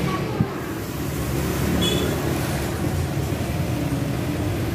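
Steady low rumble of road traffic, with a single sharp metallic knock about half a second in as the steel shaker cup is handled, and a brief high squeak near two seconds.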